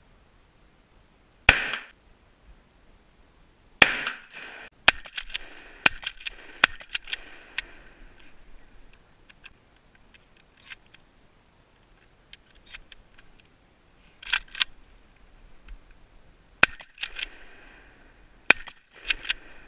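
Mossberg 500 pump-action shotguns, 12- and 20-gauge, firing: several sharp shots with a short echo after them, the first two about a second and a half and four seconds in, more near the end. Between the shots come quick metallic clicks and clacks as the pump is worked and shells are loaded.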